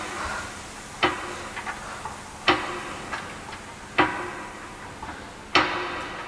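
A sharp knock repeating evenly about once every second and a half, each with a short ringing tail, with fainter clicks in between.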